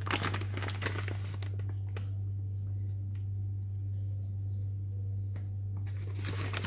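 Crinkling and rustling in two bursts, one for the first second and a half and another starting near the end, with quieter handling in between, over a steady low hum.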